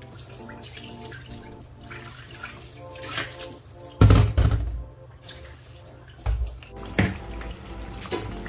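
Kitchen tap running over a stainless steel sink as a hand is rinsed under it, with background music. About four seconds in comes a loud sudden clatter, followed by two shorter knocks a few seconds later.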